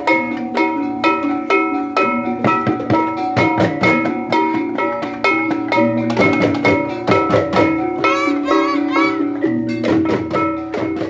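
Balinese tektekan ensemble playing: struck bamboo percussion and ringing pitched gamelan-style notes in a fast, even interlocking rhythm.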